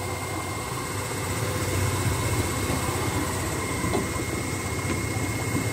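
Small hire motorboat's motor running steadily as the boat cruises, a low hum with a steady high whine over it.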